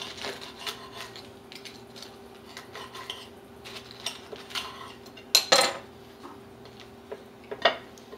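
A knife sawing through a toasted, buttered ciabatta roll on a ceramic plate, with faint repeated scraping strokes through the crust. Louder sharp clatters of the blade against the plate come about five and a half seconds in and again near the end.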